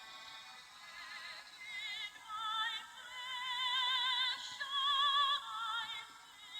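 Background music: a high operatic voice singing long held notes with wide vibrato, growing louder over the first couple of seconds.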